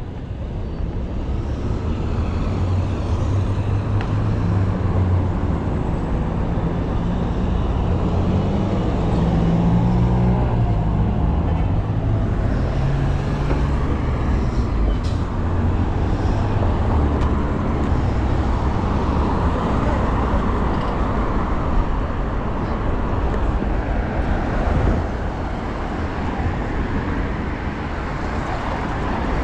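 City street traffic: a steady wash of passing cars and road noise, with a heavy vehicle's engine running close by and its low hum shifting pitch in steps during the first half.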